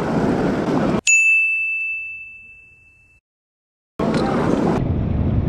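Rushing whitewater with wind on the microphone, cut off abruptly about a second in by a single bright bell-like ding that rings out and fades over about two seconds in dead silence. The rushing water returns abruptly about four seconds in.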